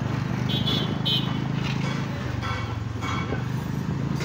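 Motorcycle engine running steadily at low speed while riding.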